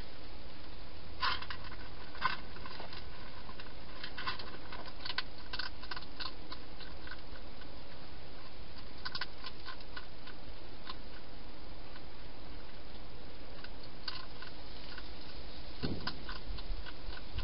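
A hedgehog eating from a bowl: scattered bursts of sharp crunching clicks as it chews, over a steady background hiss. A low thump comes near the end.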